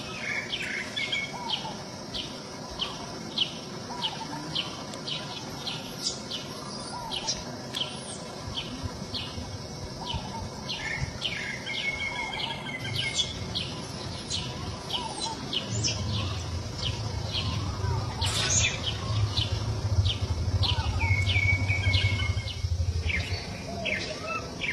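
High-pitched animal chirping: short falling chirps repeated about once or twice a second, with a couple of longer held whistle-like notes. A low rumble joins about two-thirds of the way in and runs for several seconds.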